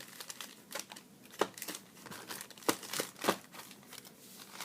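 Trading-card pack wrappers crinkling and rustling as they are handled, in irregular bursts, with a few sharper crackles about a second and a half in and around three seconds in.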